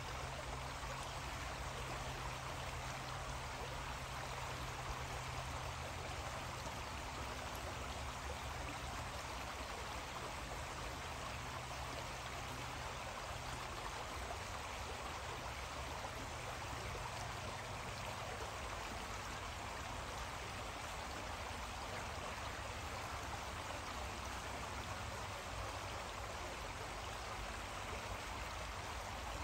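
A creek running steadily: an even wash of flowing water.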